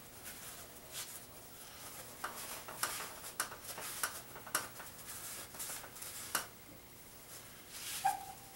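Cloth rag rubbing and wiping over the bare cast engine block, with scattered light scuffs and clicks. A brief steady tone near the end.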